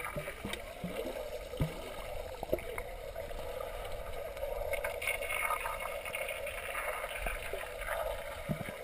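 Steady water noise in a swimming pool, picked up by a camera held under the water, with a few faint clicks.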